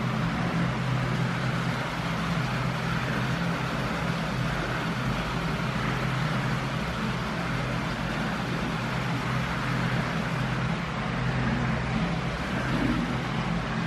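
Steady low mechanical hum with an even hiss over it, with no separate knocks or splashes standing out.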